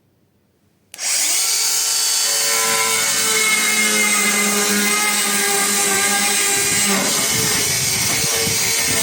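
Bosch NanoBlade saw starting suddenly about a second in and running with a steady high motor whine. From about seven seconds in its sound turns rougher and less even as the blade works through chipboard.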